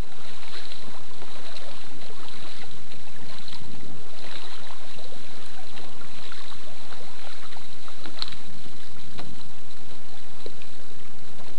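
Water lapping against a kayak hull, with wind buffeting the microphone and scattered small knocks.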